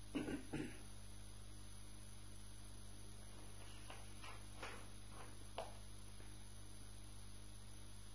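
Steady low electrical mains hum in the recording. Two short, soft sounds come just after it begins, and a few faint brief ticks fall around the middle.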